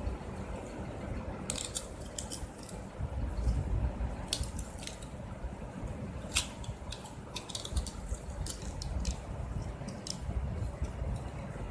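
Small sharp clicks and ticks of the Lenovo A2020a40's plastic mid-frame, flex cable and circuit board being pressed and handled, coming in scattered clusters over a steady low rumble.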